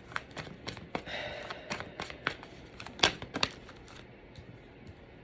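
Tarot cards being shuffled and handled: a run of quick flicks and papery rustles, loudest about three seconds in, then thinning out near the end.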